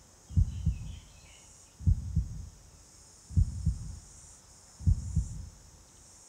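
Slow heartbeat sound effect: a low double thump, lub-dub, about every one and a half seconds, four beats in all.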